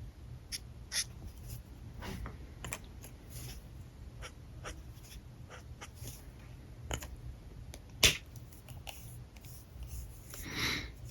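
Alcohol marker tips scratching across paper in short strokes, with scattered small clicks and taps of the markers being handled, one sharp click about eight seconds in, and a longer scratchy stroke near the end.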